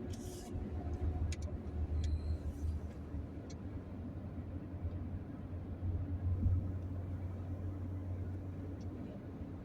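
Steady low rumble of a vehicle on the move: engine and road noise, with a few faint clicks in the first few seconds.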